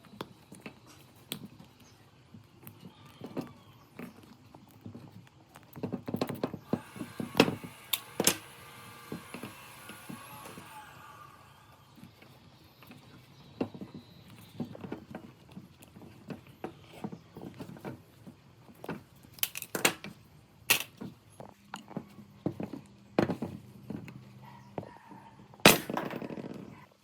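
Hand tools and metal parts being handled at a workbench: scattered clicks and knocks, with a brief whirring from about six to eleven seconds.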